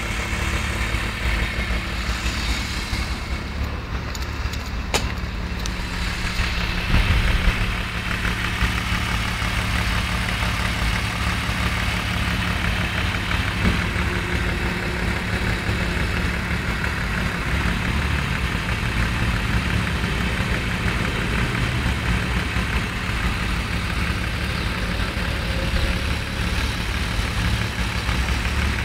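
An old vehicle's engine idling steadily, with a brief louder moment about seven seconds in.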